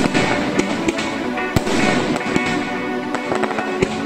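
Aerial fireworks bursting with several sharp bangs, heard over background music with sustained tones.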